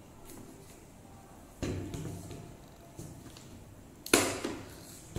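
Knocks and clunks of a Makita DUC252 cordless chainsaw's plastic body being handled on a wooden table as its batteries are fitted. There are a few separate knocks, the loudest about four seconds in.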